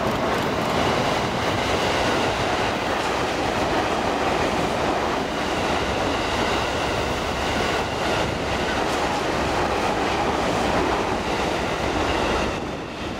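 JR East 255 series limited-express electric train passing close by at speed: a steady rush of wheel and air noise with a few faint clicks. It falls away near the end as the last car clears.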